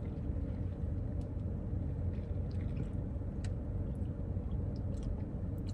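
Steady low hum of a car idling, heard from inside the cabin, with a few faint light ticks.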